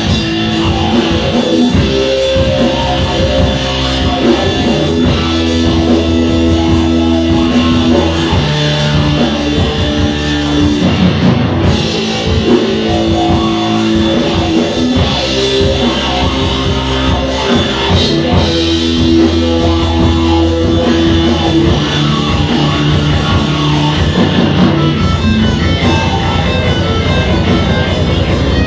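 Rock band playing live: two electric guitars, bass guitar and drum kit in a loud instrumental passage without vocals.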